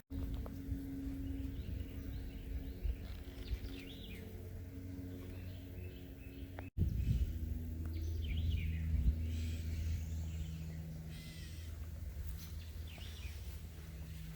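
Birds chirping and calling in short repeated notes over a steady low hum.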